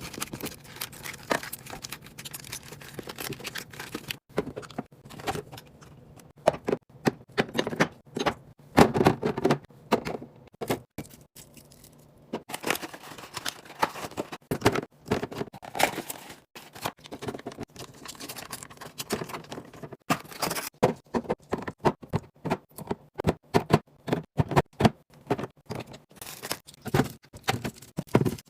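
Items being handled while a refrigerator is restocked: a busy run of irregular clicks, taps, scrapes and rattles as containers and packages are picked up and set down, with a brief lull about ten seconds in.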